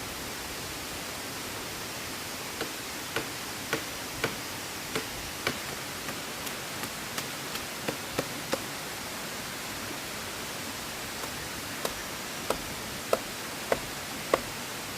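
Runs of sharp, short knocks, about two a second, over a steady rushing noise. The knocks come in three bursts, and the loudest are near the end.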